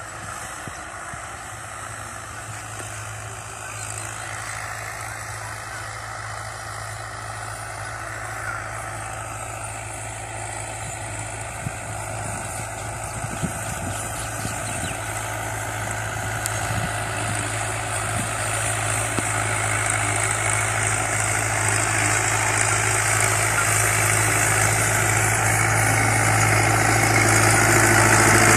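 Farm tractor engine running steadily while it works a tilled field, growing steadily louder as the tractor comes close.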